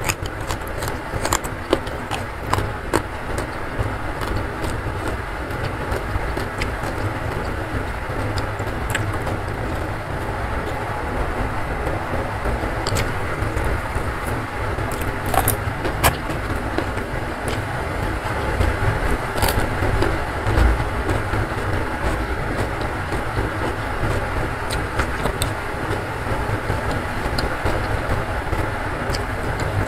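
Steady heavy rain with a rumbling sound, overlaid by occasional sharp clicks and crunches from eating by hand.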